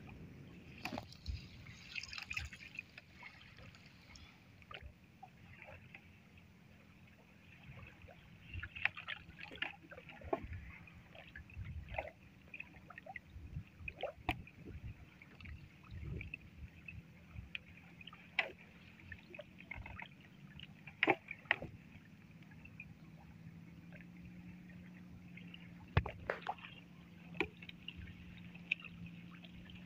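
A wet gillnet being hauled hand over hand into a wooden boat: water trickling and dripping off the net, with scattered clicks and knocks against the hull.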